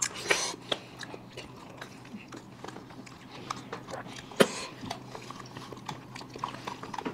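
Close-miked mouth sounds of people eating ice cream bars: lips and tongue sucking and smacking on the frozen bars, making irregular short wet clicks. The sharpest smacks come about a third of a second in and about four and a half seconds in.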